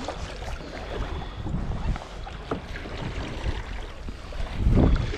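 Wind buffeting the microphone over water sounds around a kayak at sea, with a low rumble and scattered small splashes and knocks.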